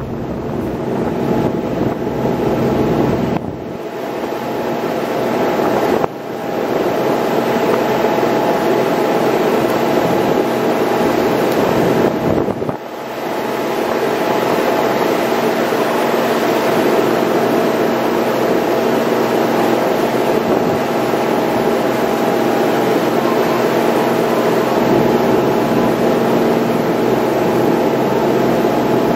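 Inter-island shuttle boat's engine running steadily under way, a constant drone mixed with a steady rushing noise. The sound drops off briefly three times in the first half.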